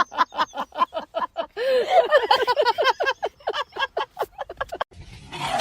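A rapid run of short, pitched vocal calls, about four or five a second, each rising and falling in pitch, with a noisier stretch near the end.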